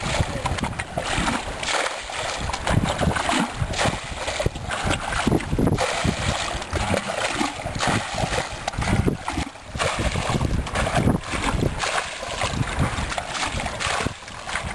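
Muddy water splashing as a plastic bucket is scooped and tipped out again and again, bailing out a shallow pool.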